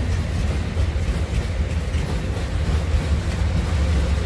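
Freight train of steel hopper wagons rolling past with a steady, heavy low rumble. Near the end the steady drone of the diesel locomotives at the rear of the train comes in.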